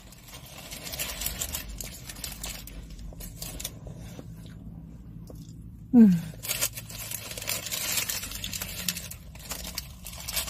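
Bites into a crunchy Doritos-flavoured taco shell and chewing, with many short crisp crunches and a brief lull near the middle. About six seconds in comes the loudest moment, a short vocal sound falling in pitch.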